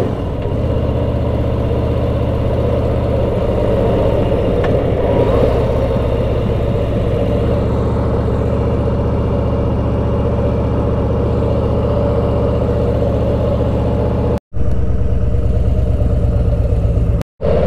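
Harley-Davidson Street Glide CVO's V-twin engine running steadily at low revs, its pitch shifting a few seconds in. The sound cuts out completely twice, briefly, near the end.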